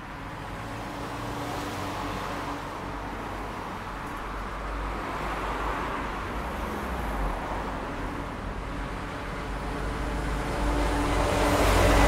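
Rush-hour city street traffic: cars running past with a steady low engine hum under tyre and road noise, growing louder towards the end.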